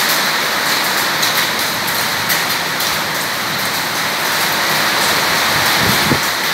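Heavy rain pouring down steadily on a corrugated metal roof and waterlogged paving: a dense, even hiss.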